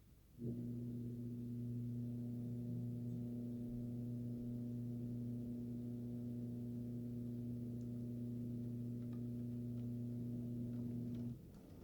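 A steady low-pitched hum with several overtones, unchanging in pitch and level, that starts abruptly and cuts off suddenly about eleven seconds later.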